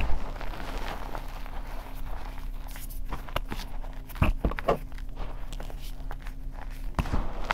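Hands squeezing and crumbling reformed gym chalk powder: soft, dry crunching with a few sharper crunches about three, four and seven seconds in.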